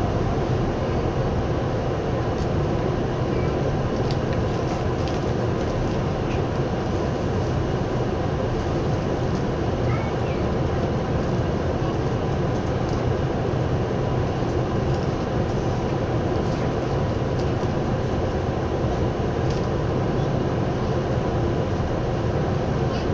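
Steady running noise inside a Tokyu Oimachi Line commuter train car under way: a low rumble from the wheels on the rails, with a few faint clicks now and then.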